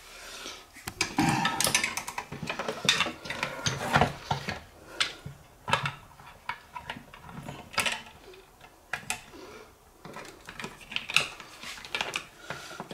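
Hard plastic parts of a refrigerator ice maker being handled and fitted together by hand: irregular clicks, taps and rattles.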